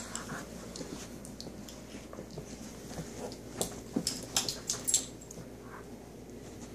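A dog playing with a toy on carpet: scattered light clicks and taps, busiest between about three and a half and five seconds in.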